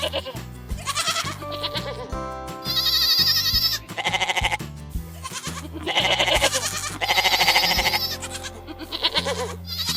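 Goat bleating several times, each bleat a short quavering call, over steady background music.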